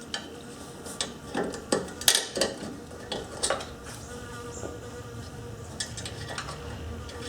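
Scattered light metallic clicks and clinks of hand tools and small parts being handled while a washer is fitted onto a ride-on mower's gear-select linkage shaft, over a faint steady hum.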